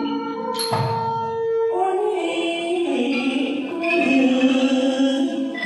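A struck tuned-percussion note rings and fades. About two seconds in, the likay lead actor's voice begins a long sung line through a handheld microphone, held and sliding between pitches.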